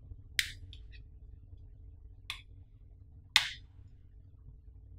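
Three sharp clicks and taps from a hard plastic battery phone case being handled, with a couple of lighter ticks after the first; the loudest click comes a little past three seconds in.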